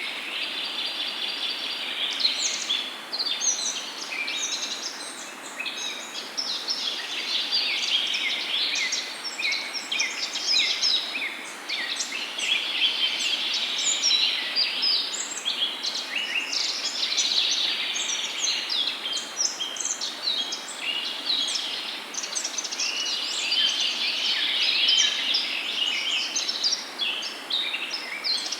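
Many birds chirping and singing at once in a dense, continuous chorus of short high calls and trills, over a steady faint hiss of outdoor ambience.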